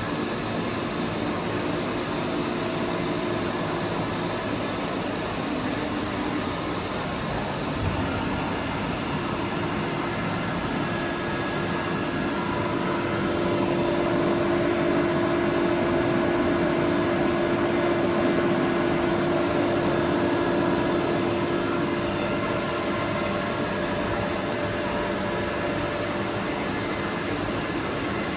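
Deckel Maho DMC 635 V vertical machining centre running: a steady mechanical hum and hiss with a steady whine in it, growing louder for several seconds in the middle. A single click comes about eight seconds in.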